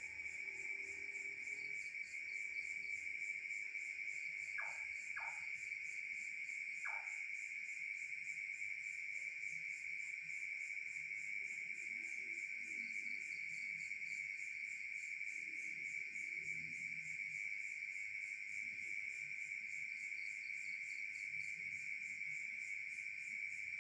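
Crickets chirring in a steady, shrill, fast-pulsing drone at night. Three brief sharp notes stand out about five and seven seconds in.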